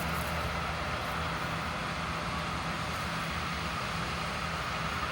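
Combine harvesters' engines running steadily while harvesting soybeans: a constant low hum with a steady higher whine above it.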